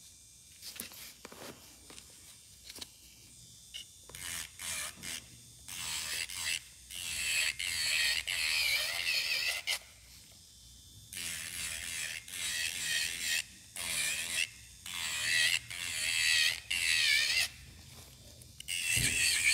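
Electric nail drill with a filing bit grinding an acrylic powder nail in repeated short passes, a high wavering whine that comes and goes as the bit touches and lifts off the nail. The first few seconds are quieter with only scattered light clicks, and there is a pause of about a second near the middle.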